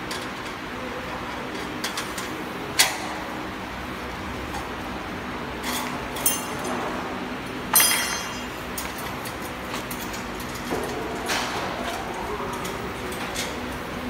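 Stainless-steel elevator frame parts and hand tools clinking and knocking during assembly: a few sharp metal strikes, the loudest just past halfway ringing briefly, over a steady low hum.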